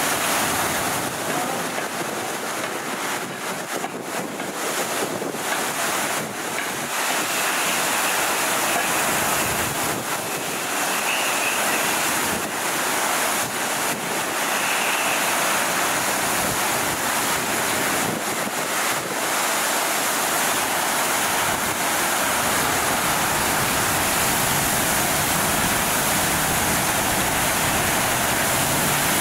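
Water gushing at high pressure from a sheared fire hydrant, a steady rushing hiss. From about three-quarters of the way through, a low steady hum comes in underneath.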